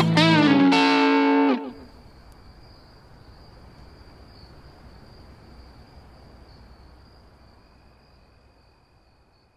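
Music cuts off abruptly under two seconds in. After it comes a faint, steady chirring of crickets, which fades out near the end.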